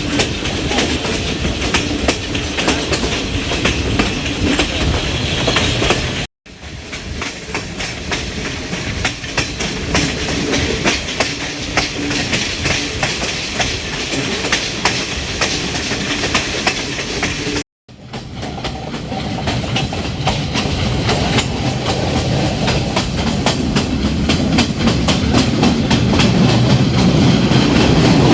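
Passenger train running along the track, heard from a carriage window: steady rumble with fast wheel clicks on the rails. The sound cuts out briefly twice, and the low rumble grows louder near the end.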